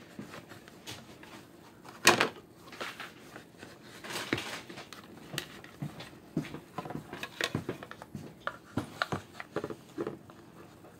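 Plastic Megatron statue being handled and tried onto its display base: irregular light clicks, taps and knocks of plastic against the base, with one louder knock about two seconds in.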